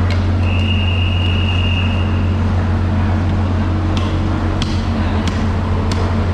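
A steady, loud low machine hum, like a running engine. A brief high-pitched tone starts about half a second in and holds for about two seconds. Several sharp clicks come in the last couple of seconds.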